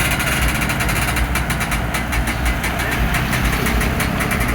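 Komatsu excavator's diesel engine running steadily, with a rapid, irregular clicking over it.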